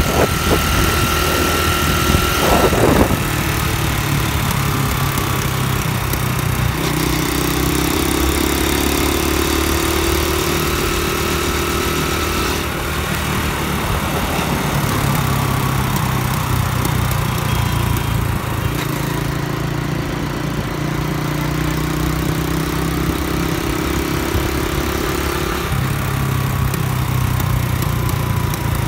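Honda Dream underbone motorcycle's small single-cylinder four-stroke engine running while riding, its note shifting up and down several times as the throttle changes.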